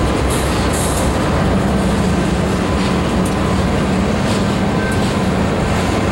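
Slow freight train rolling past close by: tank cars' steel wheels running over the rail with occasional clicks at the joints. Beneath it is a steady low drone from the GE C44-9W diesel locomotives pulling the train.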